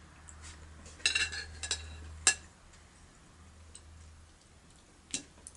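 Cutlery clinking against a plate: a short run of ringing clinks about a second in, one sharp clink a moment later, and another light clink near the end.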